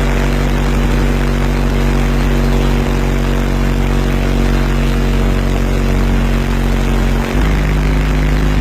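Six 18-inch Crossfire subwoofers playing a long, loud, steady low bass tone with distortion overtones stacked above it. The tone shifts slightly near the end.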